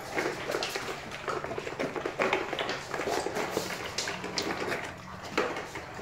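Several dogs eating dinner from their bowls: busy, irregular chewing and crunching with small clicks and taps.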